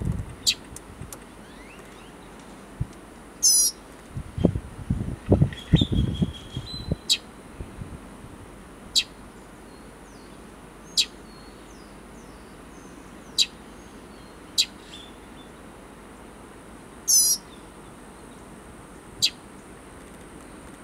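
Northern mockingbird fledgling calling: short, sharp, falling call notes every couple of seconds, with a brief very high trill twice. A burst of low thumps comes a few seconds in.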